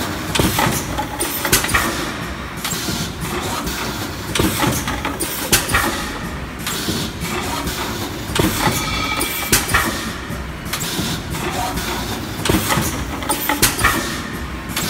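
OUGE OGB-4S PET bottle blow-moulding machine running: a steady, loud mechanical din with frequent sharp clicks and knocks.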